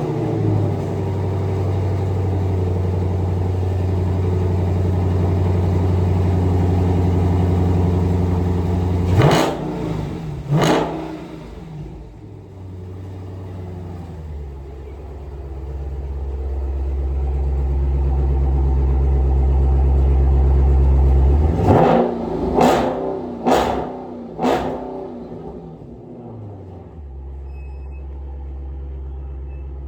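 Dodge Scat Pack's engine revving through its exhaust: held at raised revs for several seconds, then two sharp throttle blips before dropping back. The revs build and hold again, three quick blips follow, and it settles into a steady idle.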